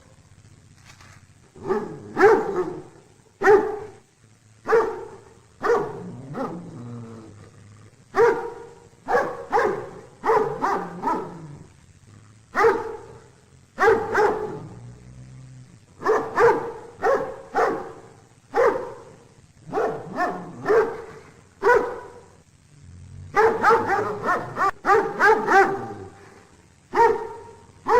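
A dog barking repeatedly in short single and double barks at an irregular pace, with a quick run of barks about three-quarters of the way through.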